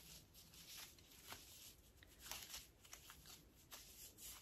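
Faint rustling and soft ticks of hands braiding hair with a ribbon woven through it, close to near silence.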